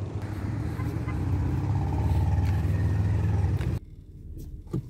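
Steady low rumble of a motor vehicle, cutting off suddenly just before four seconds in, after which it is much quieter with a couple of brief clicks.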